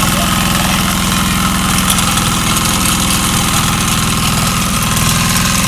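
Ploughing machine's engine idling steadily, with an even, rapid chug.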